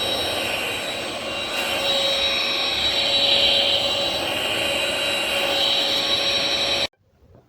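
VersLife S7 Plus cordless stick vacuum with mop function running, a steady high motor whine over a rush of air, which cuts off suddenly near the end.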